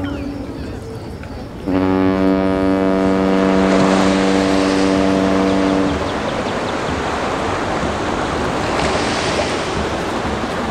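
Ship's horn sounding a long steady blast that starts about two seconds in and stops about six seconds in, just after a previous blast has ended. Under it, a steady rushing noise keeps going to the end.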